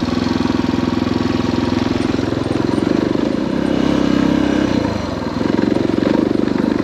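Suzuki DR650's single-cylinder four-stroke engine running steadily as the motorcycle is ridden, its sound dipping briefly about five seconds in before picking up again.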